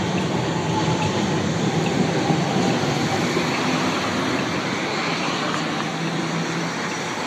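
Low-floor electric street tram running past close by, a steady rolling noise of wheels on rails with a faint hum, easing off slightly toward the end.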